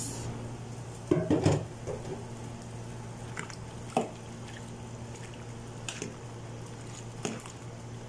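A spoon stirring penne pasta into a pot of soup broth, with wet squishing and a few knocks of the spoon against the metal pot; the loudest knocks come about a second in. A steady low hum runs underneath.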